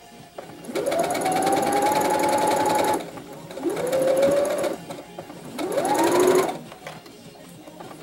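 Electric sewing machine stitching in three bursts, its motor whine rising in pitch as each starts: a run of about two seconds, then two shorter runs of about a second each.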